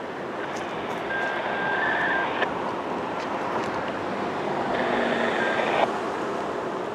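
Road traffic noise that swells twice and drops back abruptly each time.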